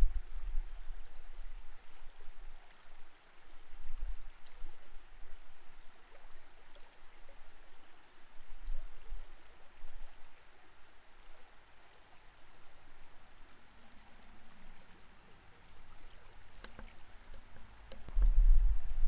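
Creek water heard through an underwater camera: a faint, muffled wash of flowing water with low rumbling buffets that come and go, strongest near the end.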